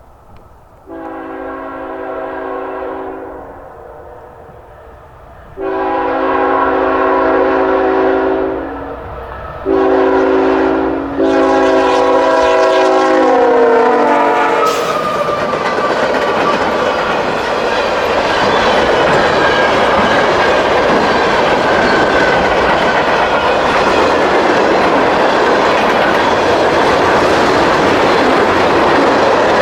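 CSX freight locomotive's multi-chime air horn sounding the grade-crossing signal, two long blasts, a short one and a final long one that drops in pitch as the locomotive passes close by. The train then rolls past loudly with wheel clatter from the freight cars.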